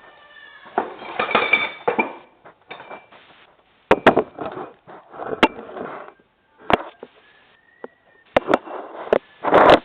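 Irregular clinks, knocks and short rattles of hard, likely metal, parts being handled and set down, with the loudest knock near the end.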